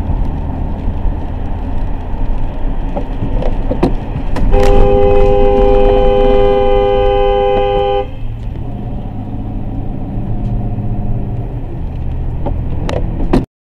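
Car horn held steadily for about three and a half seconds, a chord of two notes, over continuous road and engine noise heard inside a moving car. The horn starts about four and a half seconds in and stops cleanly.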